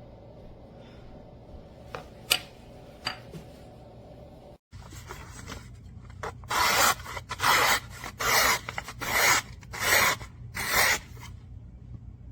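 HORL 3 Cruise rolling sharpener's diamond disc being rolled back and forth along a knife edge: a few light clicks, then about six rasping strokes in quick succession in the second half.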